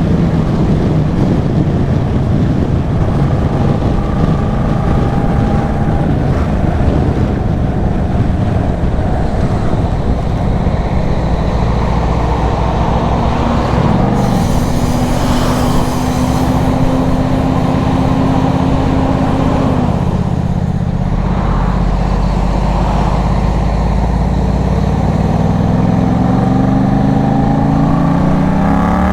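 Yamaha MT-07's 689 cc parallel-twin engine through an Arashi aftermarket exhaust, running under way at fairly steady revs with wind rumbling on the microphone. Near the end the revs climb as it accelerates.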